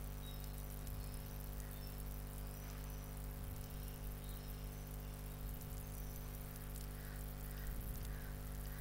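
Steady electrical hum and hiss of a recording's background noise, with faint short high chirps now and then.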